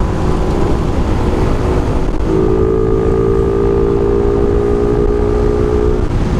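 Suzuki Raider 150 Fi motorcycle running at a steady cruise, heard over heavy wind rumble on the camera microphone. The engine note holds level from a bit over two seconds in until about six seconds.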